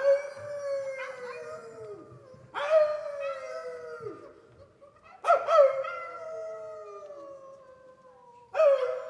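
Wolf howls: four long calls a couple of seconds apart, each starting high and sliding down in pitch.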